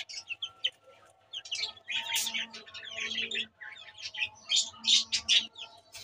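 Young chickens cheeping: a run of many short, high chirps.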